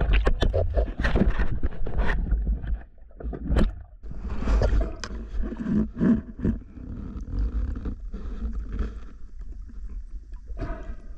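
Underwater sound picked up by a diver's action camera: a constant low rumble of water moving against the housing, with many sharp clicks and knocks as the freediver swims and handles the speared fish.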